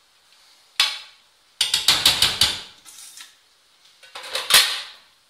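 A metal spoon knocking and scraping against an aluminium cooking pot: a sharp clack about a second in, a quick run of clattering taps around two seconds in, and another clatter near the end.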